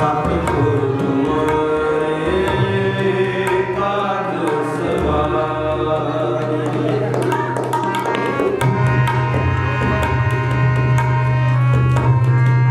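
Instrumental interlude of Sikh kirtan: tabla strokes in a steady rhythm under a sustained melody and a continuous low drone.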